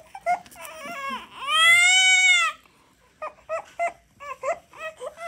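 Infant crying: one long wail about two seconds in that rises and then falls in pitch, with short fussing cries before and after it.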